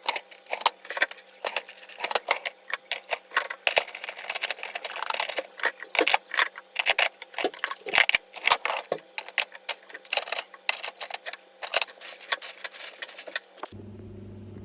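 Rapid, irregular clicking and crackling, close and sharp. Near the end it cuts off and a car cabin's steady low drone takes over.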